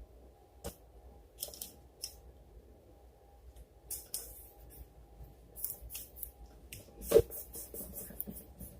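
Small crisp clicks and snips from handling the power bank's parts and tools, with one louder knock about seven seconds in.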